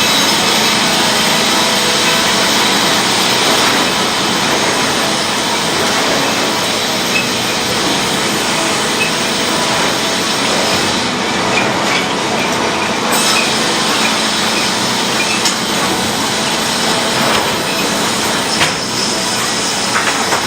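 Sawmill saw cutting a log into true-dimension 2x4 lumber: a steady, loud sawing noise with a few faint knocks.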